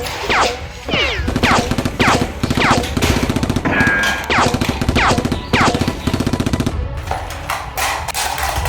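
Gunfire sound effects for a toy-blaster battle: rapid machine-gun-style firing with repeated whistling shots that fall in pitch, about two a second, which stop about two-thirds of the way in while the firing goes on.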